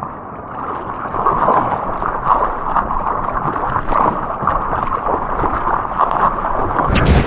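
Seawater sloshing and splashing in the surf, a steady churning noise with irregular surges.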